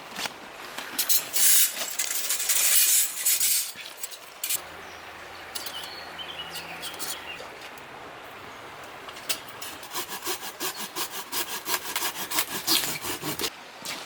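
Hand saw cutting through a dead branch, in two spells of quick back-and-forth strokes: one in the first few seconds and a longer, rhythmic one near the end.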